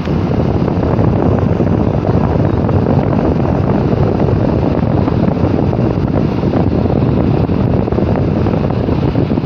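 Electric fan running steadily, its airflow rushing loudly over the microphone.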